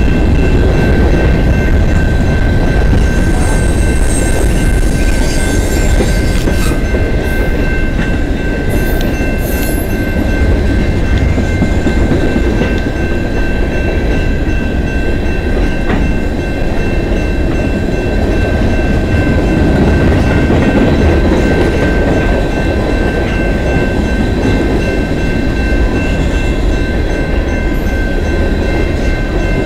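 A long CN freight train of covered hoppers, gondolas and tank cars rolling through a grade crossing: a steady heavy rumble of steel wheels on rail with clickety-clack, and a few brief high scrapes in the first third. Steady high ringing tones sit over the rumble throughout.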